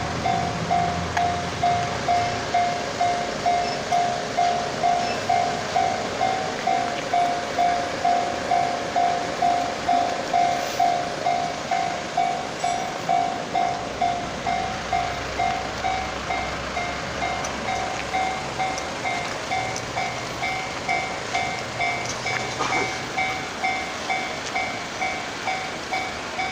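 Japanese railway level-crossing warning bell ringing, an even electronic 'kan-kan' tone struck about twice a second without a break.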